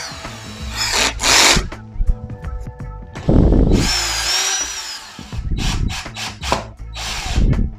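Cordless drill running against a pine board in short bursts, its motor whine rising as it speeds up and falling as it slows, with shorter trigger blips and clicks near the end.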